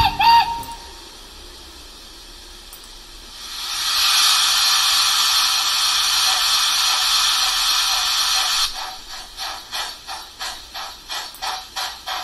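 Steam locomotive sounds of an FS Gr 741 played by an ESU LokSound V5 decoder through the H0 model's small speaker. A whistle blast ends as it begins. About three seconds in, a steady hiss of steam rises and holds. Near the end, exhaust chuffs start at about two to three a second.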